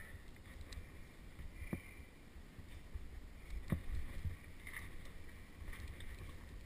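A caver moving over rock, heard through a helmet-mounted camera: scuffing and scraping, with two sharp knocks about two seconds apart, over a low rumble of handling noise from the helmet.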